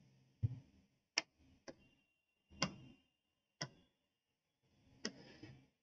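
Stylus tapping on an interactive display board: about six faint, irregularly spaced taps and clicks.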